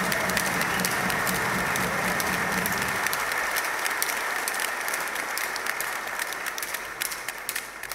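A large crowd applauding, many hands clapping at once; the applause dies down near the end.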